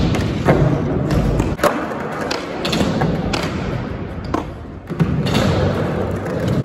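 Skateboard wheels rolling on concrete, with several sharp clacks and thuds of boards popping and landing.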